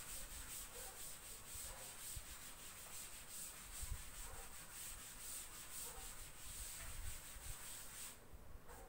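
Chalk writing being wiped off a blackboard: faint, scratchy rubbing in quick back-and-forth strokes that stops shortly before the end.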